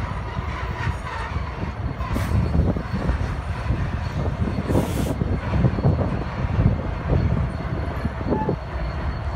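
Three diesel-electric freight locomotives, two Norfolk Southern and one Union Pacific, rolling slowly in reverse over a grade crossing: a steady deep engine rumble with wheels on rail. Two short hisses come about two seconds and five seconds in.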